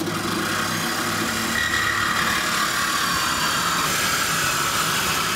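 Corded reciprocating saw cutting through a metal factory exhaust pipe, running steadily at full speed with the blade rasping through the pipe wall.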